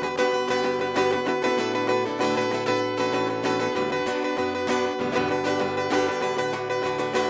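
Instrumental music with plucked strings to the fore, steady and without singing.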